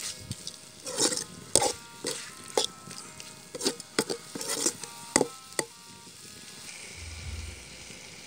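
Steel ladle stirring and scraping a blackened pan of frying meat and onions: irregular sharp metal clinks, about two a second, each with a short ring, over a frying sizzle. The clinks stop about six seconds in, leaving the quieter sizzle.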